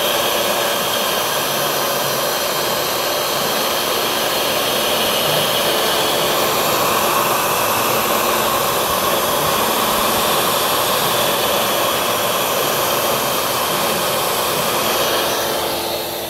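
CNC router spindle running steadily while its V-bit engraves letters into a wooden plank: a continuous motor whine with the hiss of the bit cutting wood.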